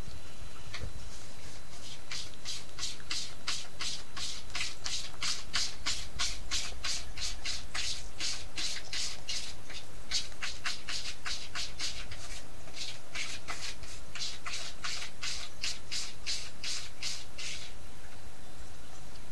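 A kitten sucking on a finger: a long run of rhythmic sucking clicks, about three a second. It starts about two seconds in, pauses briefly near the middle and stops near the end.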